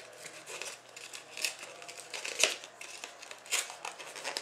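A cardboard Panini Zenith 'Dare to Tear' hockey card being torn open by hand: several short rips and rustles of card stock, about a second apart.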